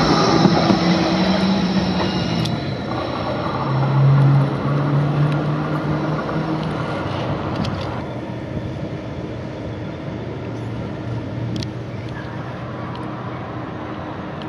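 Bombardier Flexity 2 electric tram passing close by and pulling away: a steady running hum with a few held tones that fades over the first several seconds.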